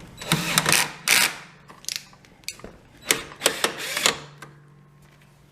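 A run of irregular mechanical clicks and rattles, loudest about a second in and again around three to four seconds in.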